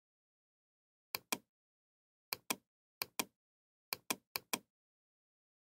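Computer mouse clicks: five sharp double clicks, each a press and release about a sixth of a second apart, at uneven gaps of around a second, with dead silence between them.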